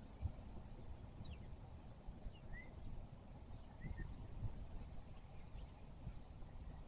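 Outdoor field ambience: a steady high insect drone, a few short bird chirps, and an uneven low rumble with occasional soft knocks.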